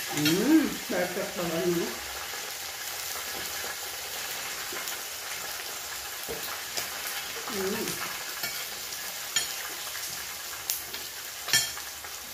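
Pork belly sizzling steadily on a tabletop electric griddle. A voice is heard briefly at the start and again about eight seconds in, and there are a few sharp utensil clicks near the end.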